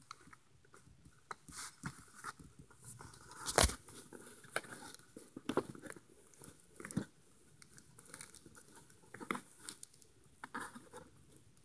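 Faint scattered handling noises: short clicks and rustles of the camera and toy being moved about, with one louder knock about three and a half seconds in.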